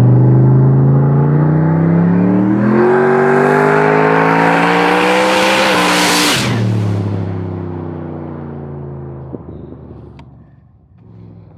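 Built 427 cubic-inch V8 of a turbocharged Chevy Silverado pulling hard under full throttle, very loud, its pitch climbing for about six seconds with a brief step near three seconds in. About six seconds in it peaks and drops suddenly to a lower, steady note that fades away as the truck moves off.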